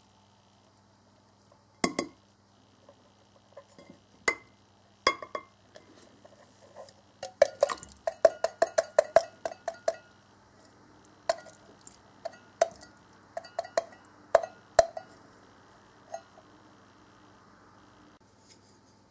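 Metal can knocked and tapped against the rim of a ceramic bowl as canned oden is shaken out into it: sharp clinks, a few at first, then a quick run of knocks about halfway through, then scattered taps.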